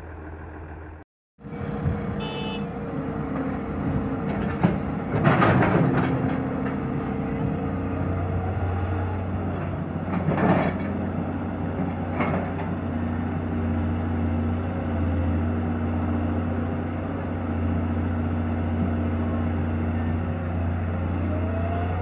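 Kato HD700VII hydraulic excavator's diesel engine running steadily under load as it digs and loads soil. The sound drops out for a moment about a second in, and two louder rushes of noise come about five and ten seconds in.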